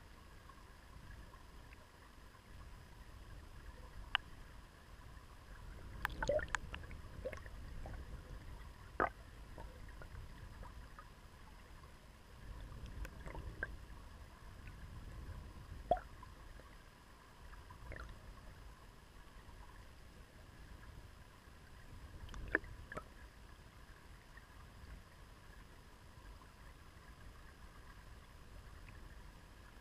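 River water flowing past an underwater camera: a low, muffled rush that swells and fades, with scattered sharp clicks, a few close together near the quarter mark.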